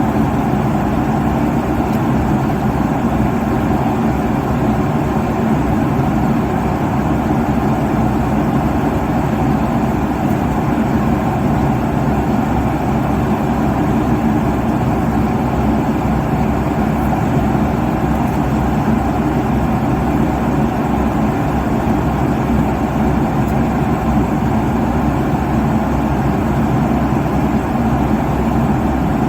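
Jet airliner cabin noise in cruise at 35,000 feet: a steady, even roar of engines and rushing air, deepest in the low end and unchanging throughout.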